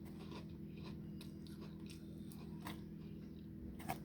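Soft crunchy chewing of a ketchup-seasoned corn snack, scattered faint crunches over a steady low hum.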